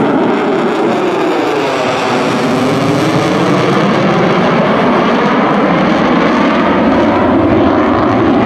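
USAF F-35A's Pratt & Whitney F135 afterburning turbofan running in afterburner during a demo manoeuvre overhead. The jet noise is loud and steady, and its tone sweeps down and back up as the aircraft moves across the sky.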